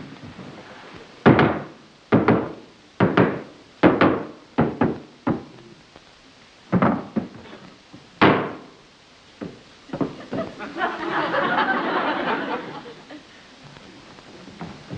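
Heavy knocks and thumps, about ten blows spread over seven seconds, as a hole is knocked through a floor down to a cellar. A rougher, noisy stretch about two seconds long follows near the end.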